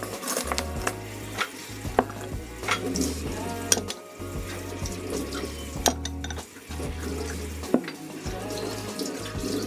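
Stainless steel cutlery and glazed ceramic bowls clinking and knocking as they are set down to dry, a series of sharp separate clinks, over background music with a steady bass line.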